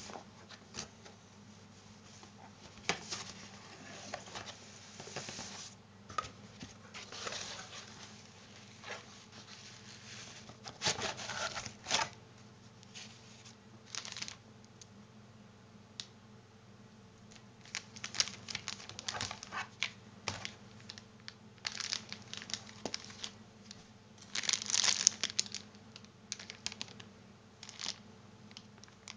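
Cardboard packaging and plastic-bagged cables being handled while a box is unpacked: irregular rustling and crinkling with small knocks, the loudest crinkling of plastic about three quarters of the way through.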